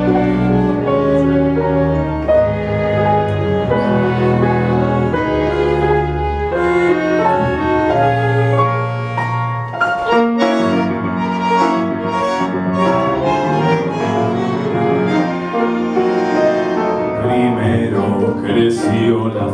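A small ensemble playing live: double bass, violins and piano in sustained, bowed string lines. Near the end a male singer comes in over the instruments.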